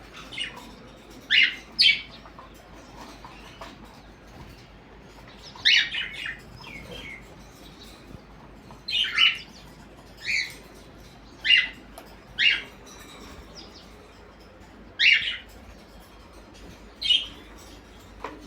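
Pet parrots giving short, loud screeching calls, about a dozen scattered singly and in pairs, one to a few seconds apart.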